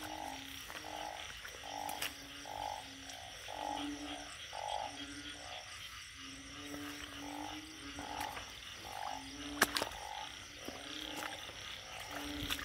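Chorus of frogs and narrow-mouthed frogs calling after rain: short croaking calls in a low voice and a higher voice overlapping, a few a second. A couple of sharp clicks about ten seconds in.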